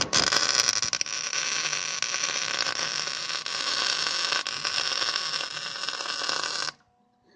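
Electric arc welder running a weld on the steel engine mounting plate: a steady hissing crackle that starts abruptly and cuts off suddenly near the end, lasting almost seven seconds.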